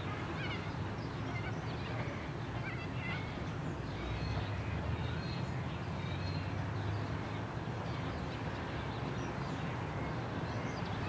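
Low steady rumble of a small steam locomotive approaching, growing a little louder midway, with birds chirping in the first few seconds.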